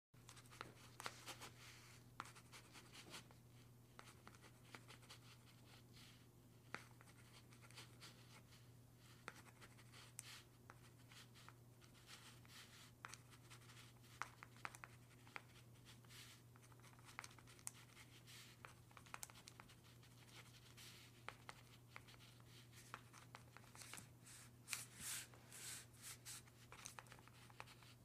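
Pen writing on paper: faint, irregular scratching strokes and small ticks, with a few longer strokes near the end. A steady low hum runs underneath.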